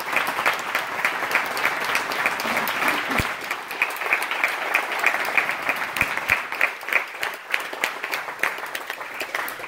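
Audience applauding: a roomful of people clapping steadily, with many sharp individual claps standing out.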